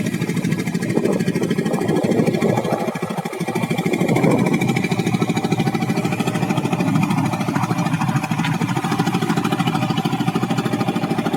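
A small fishing boat's engine running steadily at an even pulse while the boat travels.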